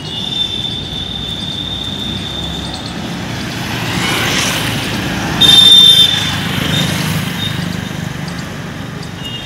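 Road traffic: vehicle engines running and passing on a town street, a steady rumble. A little past halfway there is a short, loud, high-pitched tone.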